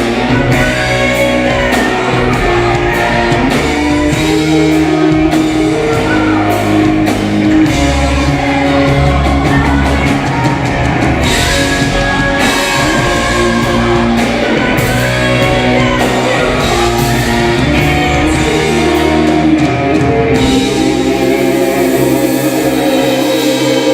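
Live band playing rock music, with electric guitar and a singer.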